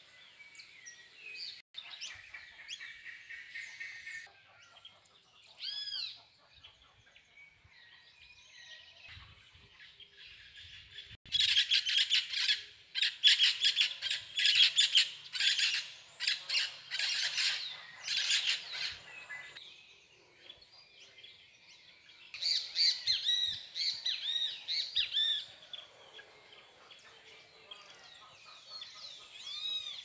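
A small flock of birds calling overhead: quieter scattered calls at first, then a loud run of rapid, repeated calls starting about eleven seconds in and lasting some eight seconds, and another loud burst of calls a few seconds later.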